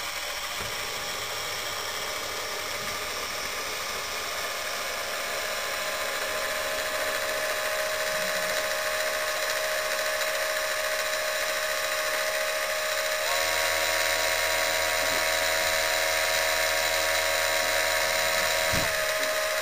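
A small electric motor and plastic gears in a Lego rotary snow plow model spin its rotary blades with a steady whirring whine. About two-thirds of the way through the whine steps up in pitch and loudness, and it drops back just before the end.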